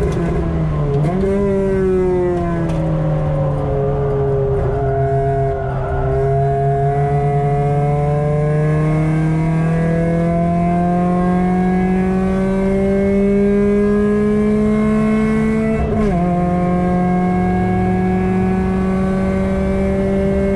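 Mk5 Ford Fiesta's swapped-in 1.7 Puma four-cylinder engine with a decat Milltek exhaust and 4-2-1 manifold, heard from inside the car on track. The revs dip and recover about a second in, then fall for a few seconds. From about six seconds in the engine pulls steadily up through the revs for about ten seconds, drops sharply at an upshift near the end, and climbs again.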